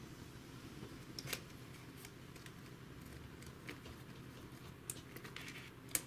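Faint clicks and taps of a metal laptop screen hinge on a Samsung R530/R540 display lid as it is handled and set against the panel's frame. A few scattered clicks, with a small cluster and a sharper click near the end.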